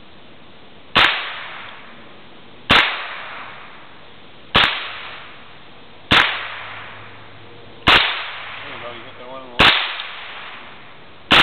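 AR-style rifle fired from a bench rest: seven single shots at an even pace about 1.7 seconds apart, each sharp crack followed by a short echoing tail.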